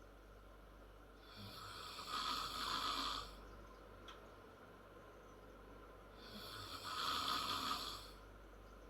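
A ten-year-old girl snoring in her sleep: two long snoring breaths about five seconds apart, each swelling up and then cutting off, with quiet breathing in between.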